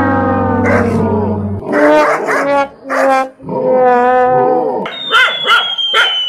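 A dog barking and yelping in short, wavering cries. A steady low tone stops about a second and a half in, and a long falling whistle comes in near the end.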